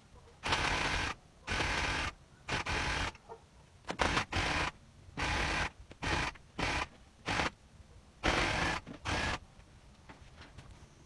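A small handheld power tool run in about nine short bursts of half a second to a second each, stopping and starting.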